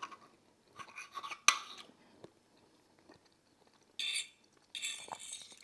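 Metal fork clinking and scraping on a plate while food is cut and picked up, with one sharp clink about one and a half seconds in. Two short hissing noises follow near the end.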